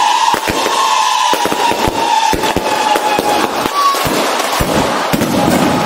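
Aerial fireworks bursting in a rapid, irregular string of bangs. Music plays along with them, with a held high tone that fades out about halfway through.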